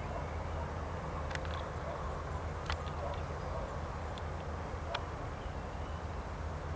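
AT-3 R100 light aircraft's piston engine running steadily at low power as a low hum, with a few short sharp clicks over it.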